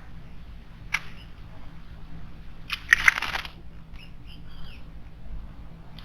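Wild birds at a garden stone water basin: a sharp click about a second in, then two harsh, noisy bursts about half a second long, one around three seconds in and one at the end, with faint short chirps between them.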